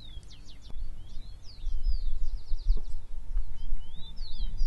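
Small birds chirping, a rapid series of short, high-pitched sweeping notes that rise and fall, heard over a low, steady background rumble.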